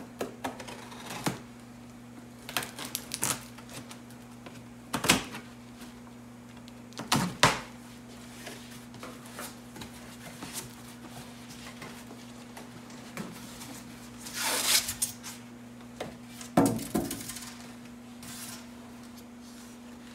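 Unpacking a shipping box of bagged fish: scattered clicks, knocks and rustles, with two longer rustling stretches in the second half, over a steady low hum.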